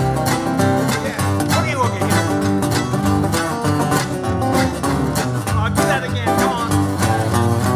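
Folk band playing an instrumental passage: a resonator guitar fingerpicked, over a steady upright bass line, with a few notes sliding up over the top.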